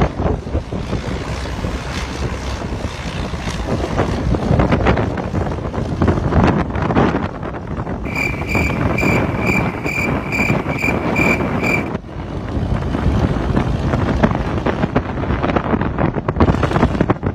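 Wind buffeting the microphone over a steady rushing noise. About halfway through, an electronic warning beep repeats about twice a second for some four seconds, then stops abruptly.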